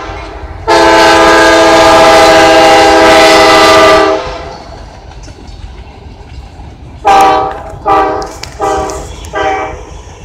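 Freight train locomotive's air horn sounding several tones at once: one long blast of about three and a half seconds, then, after a pause of about three seconds, four short blasts in quick succession.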